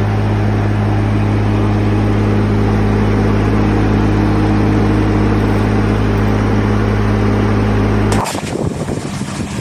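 Steady low drone of a running engine on a mobile service truck, a strong hum with higher overtones. It cuts off about eight seconds in, replaced by a thinner, rougher outdoor noise.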